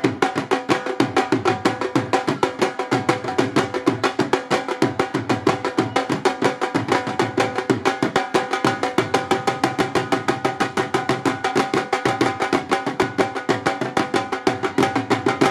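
Two Punjabi dhol drums played together with sticks in a fast, steady, driving rhythm, dense strokes with the drumheads ringing.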